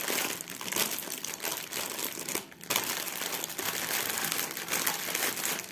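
Plastic packaging crinkling and rustling as it is handled, with a brief pause about two and a half seconds in.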